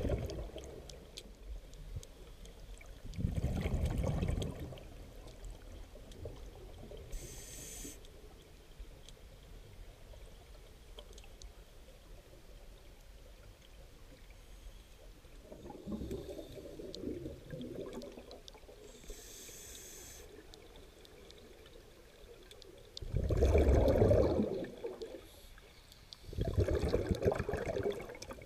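Scuba diver breathing through a regulator underwater: low bubbling rushes of exhaled air about four times, the loudest near the end, with short high hisses of inhalation through the regulator in the gaps between them.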